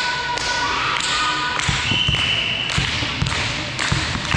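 Indoor volleyball play on a court: a run of dull thuds from feet and ball on the floor, with brief high squeaks.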